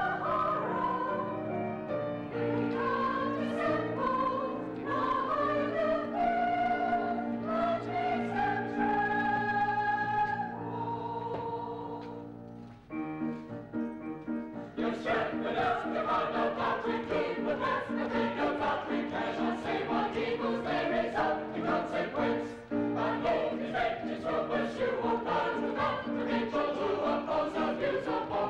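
Operetta chorus singing on stage. The first half has long held chords. After a short lull about halfway, the music turns faster and more rhythmic.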